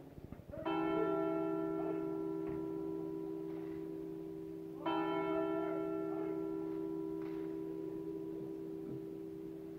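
A large church bell tolled slowly: two single strokes about four seconds apart, each ringing on and fading. This is the slow mourning toll rung for the Epitaphios on Good Friday.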